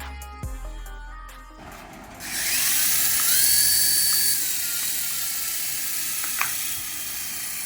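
Music, then about two seconds in a remote-control toy's small electric motor starts whirring with a high hiss, its whine rising, holding steady, then sinking back down.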